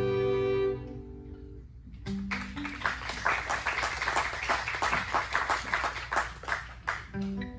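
Violins hold a long note that fades out about a second in; then an acoustic guitar strums on its own in a quick, steady rhythm, with picked notes coming back near the end.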